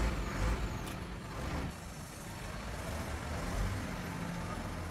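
Steady low engine rumble with a noisy hiss over it, and a couple of faint clicks about a second in.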